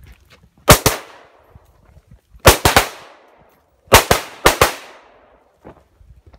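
Gunfire from a 3-gun match stage: about ten sharp shots in quick strings, a pair about a second in, four fast shots near the middle, then two more quick pairs a little later, each with a short echo.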